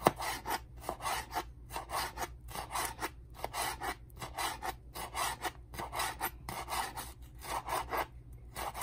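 Kitchen knife slicing a red bell pepper into strips on a wooden cutting board: a steady run of rasping cuts, two or three a second, each blade stroke crunching through the skin and scraping the board, with a sharp knock right at the start.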